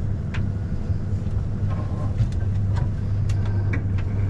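Twin outboard motors idling in neutral, a steady low hum, with a few light clicks and knocks on board.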